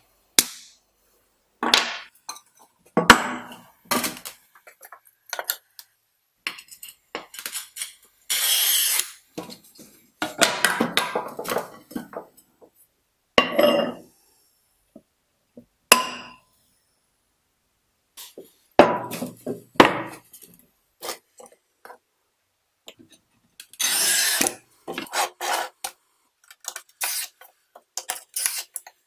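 Pieces of smalti glass clicking and clinking against each other and against the wooden table and iron hardie as they are handled. Two longer scrapes come a third and three-quarters of the way in, the later one a glass cutter's wheel scoring across a red smalti pancake.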